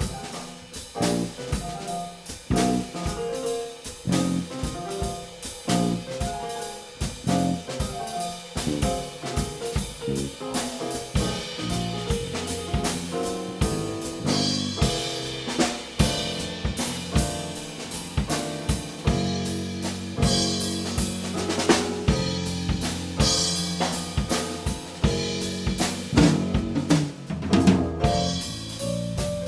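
A small jazz combo playing live, drum kit to the fore with steady snare and bass-drum hits and bright cymbal swells, over electric guitar and keyboard.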